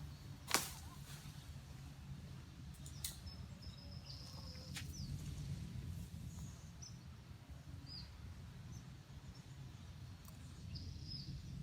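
Quiet outdoor background with a steady low hum and several short, high, downward-sliding bird chirps. A single sharp knock about half a second in is the loudest sound, with a fainter click a few seconds later.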